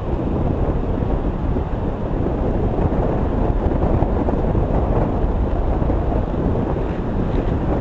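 Steady wind rumble buffeting the microphone, mixed with the wash of surf breaking on the beach.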